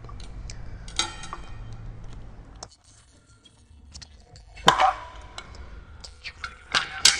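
Scattered small clicks, taps and clinks of hands and a screwdriver working the JB4 tuning module's small case open, with a louder knock and brief clink about two-thirds of the way through.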